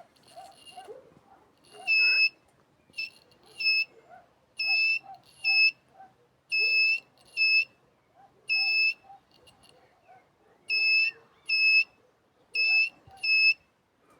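Electronic beeper of a long-range locator giving high-pitched beeps in pairs, a longer beep followed by a short one, repeating about every two seconds.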